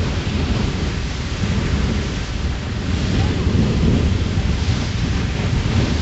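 Beehive Geyser in full eruption: a loud, steady rushing noise from the column of water and steam jetting out of its cone.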